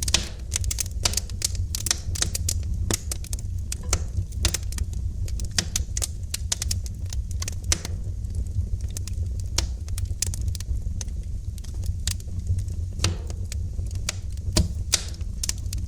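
Wood fire crackling and popping in a fireplace: irregular sharp snaps, several a second, some louder than others, over a steady low rumble.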